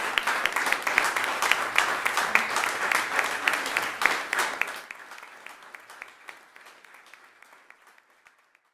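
Audience applauding: a dense run of hand claps that drops sharply about halfway through, then thins and fades away.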